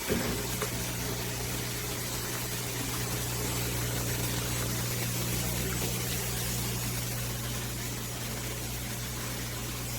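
AIRMSEN countertop mini dishwasher running a wash cycle: a steady low hum of its circulation pump over a continuous hiss of water spraying inside the tub.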